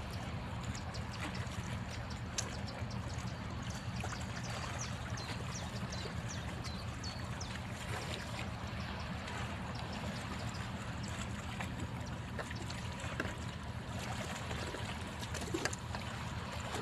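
Water trickling and splashing over a steady low hum, with a run of faint short high chirps between about four and seven seconds in.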